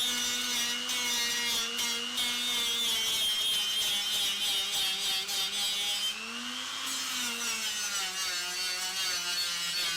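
Electric straight grinder with a stripping wheel running against rusty car-body sheet metal, stripping rust and coating from the rear subframe mounting area. The motor's steady whine sits under a gritty scraping; about six seconds in the pitch briefly rises, then settles lower.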